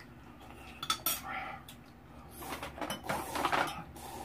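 Eating utensils clinking and scraping against a bowl while rice is mixed into noodle soup: a couple of sharp clinks about a second in, then a longer, busier stretch of utensil noise past the middle.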